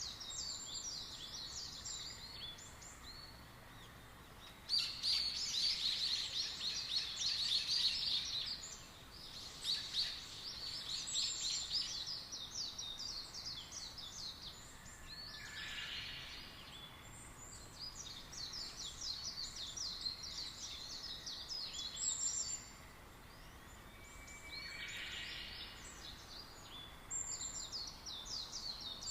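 Birds chirping in rapid high-pitched bouts a few seconds long, with a shorter, lower call twice in between.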